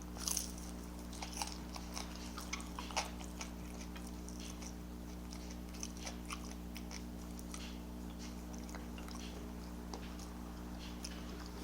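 A person chewing food close to the microphone: faint wet mouth clicks and crunches, a few louder ones in the first three seconds, over a steady low electrical hum.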